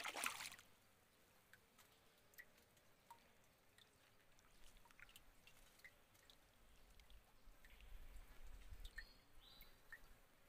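Near silence on calm water: a brief rush, like a small splash, at the very start, then scattered faint drips and ticks.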